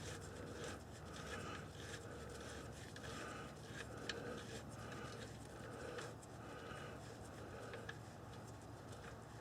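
Hot engine oil pouring from the drain hole of a 1964 Corvair's air-cooled flat-six into a drain pan, faint, with a regular pulsing about every two-thirds of a second.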